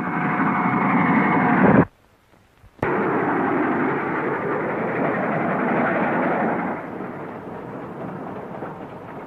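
Train rushing past at speed: a dense, steady rushing noise, with a steady high tone over it for the first couple of seconds. About two seconds in it cuts out abruptly for about a second, comes back with a click, and fades gradually near the end.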